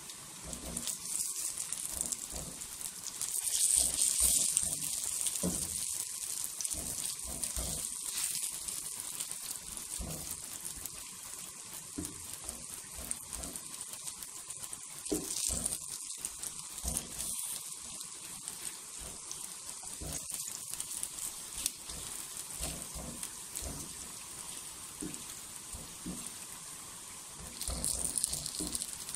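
Burger patties sizzling in hot oil in a nonstick frying pan: a steady hiss with scattered crackles and pops. The hiss swells about four seconds in and again near the end, as the patties are turned with tongs.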